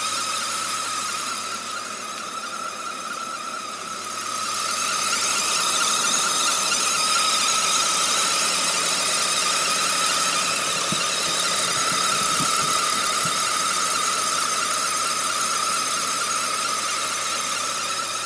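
Steady high-pitched whine from a BMW 330i E46, the odd noise in question, with a hiss above it; it holds one pitch and gets louder about four seconds in.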